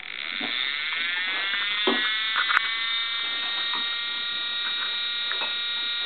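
Homemade fan siren spinning up: a multi-tone whine rises in pitch for about two seconds, then holds as a steady alert tone. A few short knocks sound around two seconds in.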